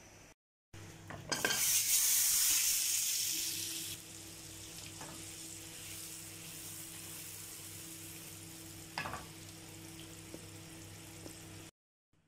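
A block of butter melting in a small hot pan, sizzling loudly for the first couple of seconds, then settling into a steadier, quieter sizzle.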